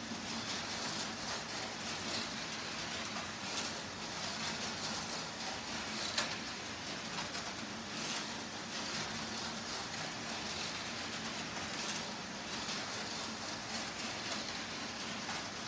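LEGO roller coaster model running as it should: a steady mechanical rattle of the lift chain and of the train rolling along the plastic track, with a sharp click about six seconds in.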